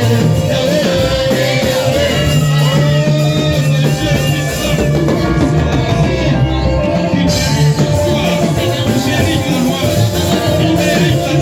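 Worship music in a church: a band with a steady bass line and singing voices.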